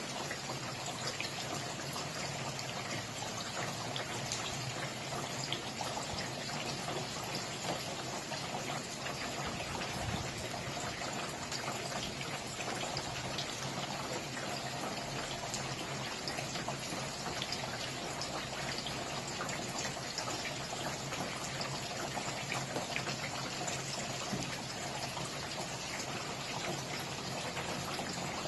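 Steady rain falling: a dense, even hiss with many separate drop ticks scattered through it.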